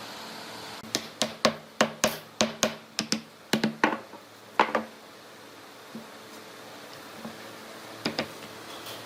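A quick, uneven series of sharp taps on wood, about four a second for some four seconds, then two or three more near the end.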